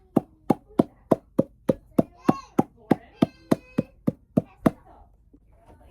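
A person making sharp, evenly spaced clicks, about three a second, as a vocal sound effect, with a voiced tone sounding between some of the clicks midway. The clicks stop shortly before the end.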